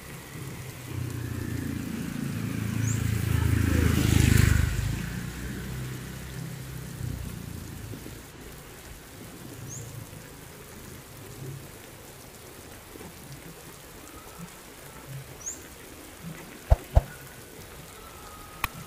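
Steady rain falling on a wet road while a motorbike approaches and passes close by, its engine loudest about four seconds in and then fading away. A few sharp knocks near the end.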